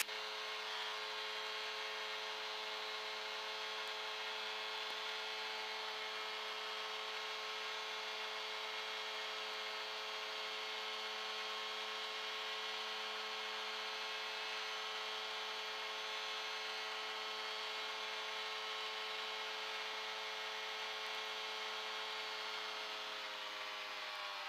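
Light aircraft's piston engine and propeller running at steady power in flight, a constant drone with rushing airflow over the airframe. Near the end the engine pitch dips slightly as power comes back.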